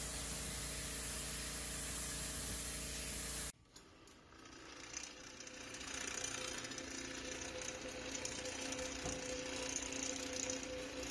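Pressure washer spraying concrete with a steady hiss that cuts off suddenly about three and a half seconds in. Then a small electric floor-stripping machine runs as its blade peels a strip of flooring off the floor, a steady mechanical hum and rattle that grows louder over the next two seconds.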